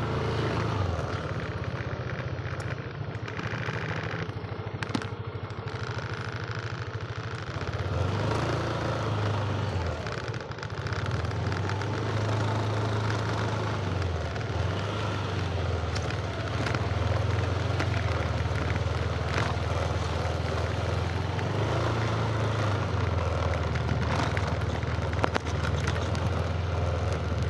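Motorcycle engine running on the move, its note rising and falling as it speeds up and slows down.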